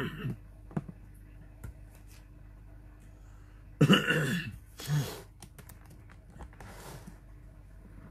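A man coughing to clear his throat into his fist: one loud cough about four seconds in and a shorter second one a second later.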